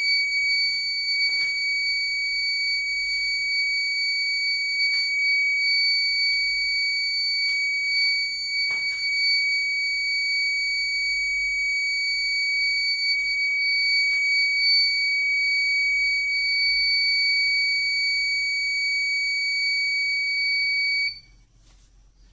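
Buzzer of a breadboard vibration-sensor door alarm circuit sounding: one steady, unbroken high-pitched tone that cuts off suddenly about 21 seconds in, the sign that the alarm has been triggered.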